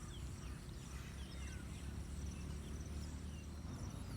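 Rural field ambience: a low rumble with scattered faint bird chirps and a pulsing insect drone.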